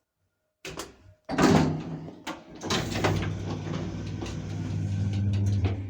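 Lift doors clunking and sliding shut, with a few knocks, then a steady low hum as the lift starts to move down.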